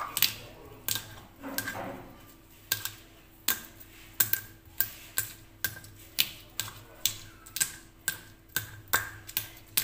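A stone pestle knocking and grinding in a stone mortar (cobek and ulekan), crushing a spice paste with small green berries. The strikes come in a steady rhythm of about two a second, closer together after the first few seconds.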